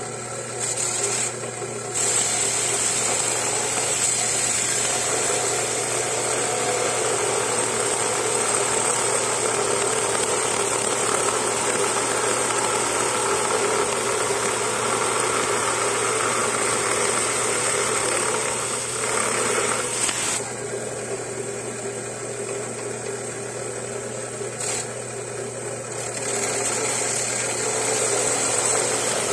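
Small lapidary saw's blade cutting into a quartz crystal: a steady motor hum under a grinding noise with a bright high edge. The grinding gets going about two seconds in, eases off for a few seconds past the two-thirds mark, then comes back.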